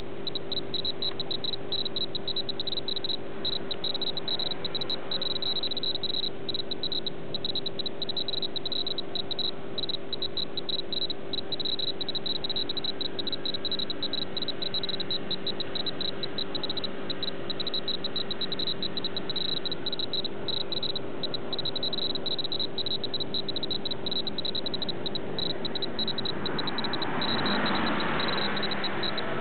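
Steady, rapidly pulsing high trilling, like an insect chorus, over a constant low hum. A brief swell of rushing noise rises and fades near the end.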